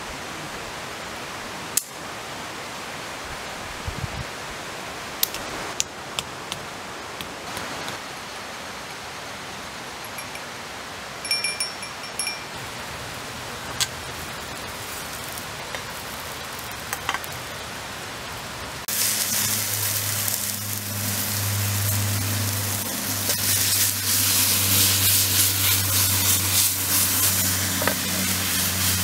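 A steady hiss with scattered sharp crackles, then about 19 seconds in a louder dense sizzle starts: food frying in a pan over a wood campfire, with a low steady hum beneath it.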